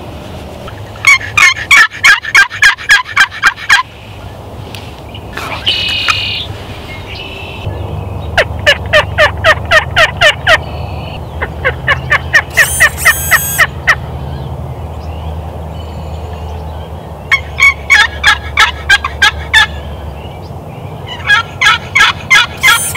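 Turkey yelping: five runs of about ten loud, quick yelps each, roughly four notes a second, with short pauses between runs.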